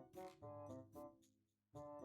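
Quiet background music: a gentle keyboard melody of short struck notes that ring and fade, several in quick succession with a brief pause before the phrase starts again near the end.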